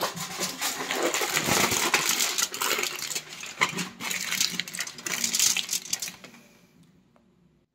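Aluminium foil crinkling and rustling as hands crumple and press it around the top of a pot, a dense run of crackles that dies away about six seconds in.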